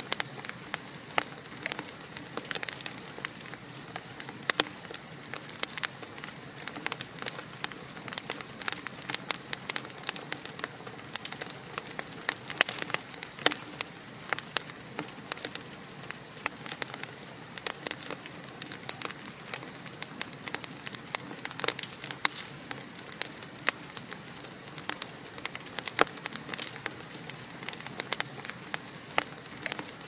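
Logs burning in a fireplace, crackling with many sharp, irregular pops and snaps over a steady soft hiss of the flames.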